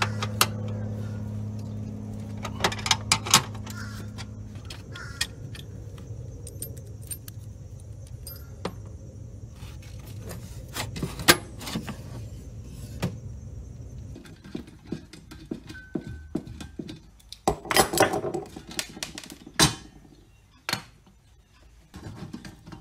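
Metal hand tools and loose nuts, bolts and brackets clinking and clicking while fittings are unbolted, in irregular bursts of sharp clinks. A low steady hum runs underneath for the first several seconds.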